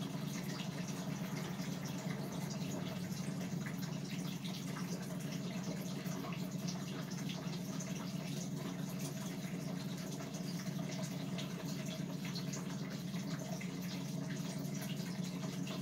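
Steady whir of an electric box fan running, with faint scattered clicks from small plastic shock parts being handled.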